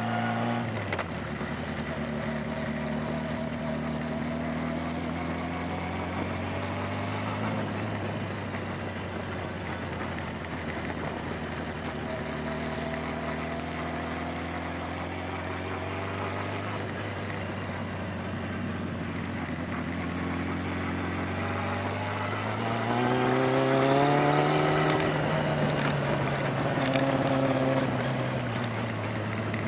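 Motorcycle engine running through tight, leaned-over gymkhana turns: the revs drop about a second in, hold fairly steady for a long stretch, then climb and fall back again a few seconds before the end.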